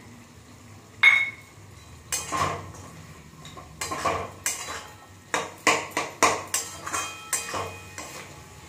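Metal spatula stirring vegetables in a metal kadai: a single ringing clang of metal on metal about a second in, then a run of scraping strokes against the pan that quicken to about three a second in the second half.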